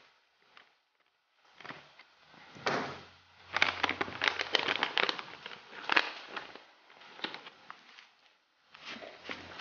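A foil-lined paper sauce-mix sachet crinkling and rustling as it is handled and cut open, with scattered small clicks and knocks, busiest in the middle.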